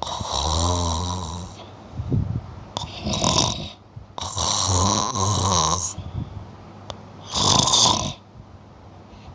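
Snoring of a small sleeper: four snoring breaths about two seconds apart, some with a low buzz and some more of a hiss.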